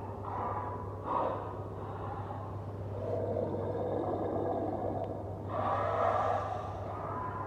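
Monster sound effect for the Rake creature: a series of breathy, rasping vocal bursts, the longest in the middle and another close after it, over a steady low hum.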